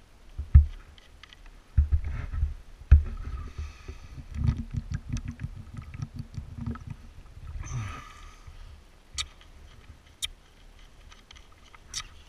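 Drinking from a plastic water bottle held close: handling bumps and knocks, a run of gulps in the middle, a breath out, then a few sharp clicks near the end.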